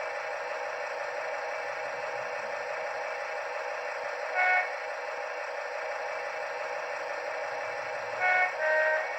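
Sound decoder of a Bachmann OO gauge Class 70 model locomotive playing a steady diesel engine sound through its small speaker. Short horn toots sound over it: one about four and a half seconds in, then two in quick succession near the end, the second lower in pitch.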